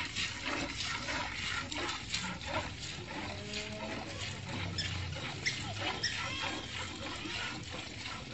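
Cow being milked by hand: milk squirting from the teats into a metal pail that already holds some milk, a quick run of short splashes with a frothy hiss.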